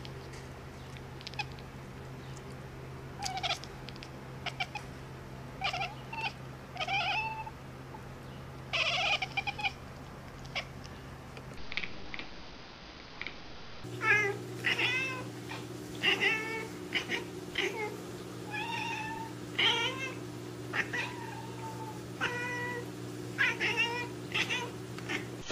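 Cat meowing over and over, short calls coming every second or so, over a steady low hum. After a short lull about halfway through, the meows come faster and more often.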